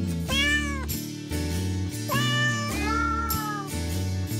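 Domestic cat meowing three times, each call rising and then falling in pitch, over steady background music.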